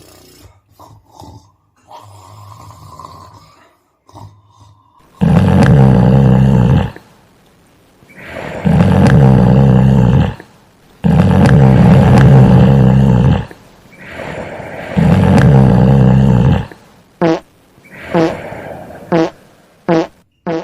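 Loud, exaggerated snoring: four long snores about three seconds apart, then a few short, quick sounds near the end.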